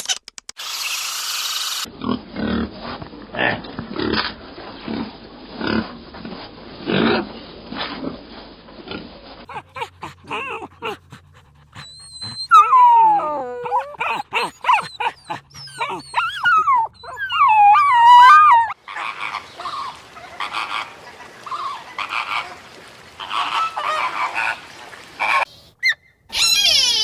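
Calls of several different animals from short clips spliced one after another, changing abruptly several times. In the middle come high wavering calls that slide up and down in pitch.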